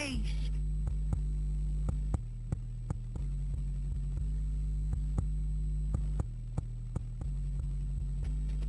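Deep sub-bass notes from a bass-test track played through a car stereo's subwoofers, held steady and shifting to a new pitch every second or so, with sharp ticks over them.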